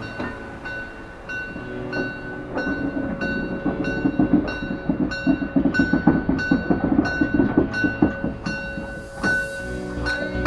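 Class 52 steam locomotive 52 8141 rolling slowly past close by, the clatter and rumble of its wheels and running gear loudest in the middle. Background music with a steady beat runs underneath.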